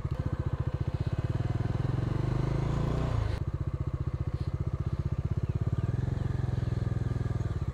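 Kawasaki motorcycle engine running at low speed as the bike is ridden slowly into a parking area, a steady throb. The note rises a little about two seconds in and drops back after about three seconds, then runs on at a low, even pace.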